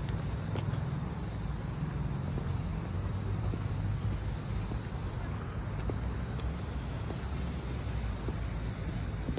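City street ambience: a steady low rumble of road traffic with faint scattered clicks.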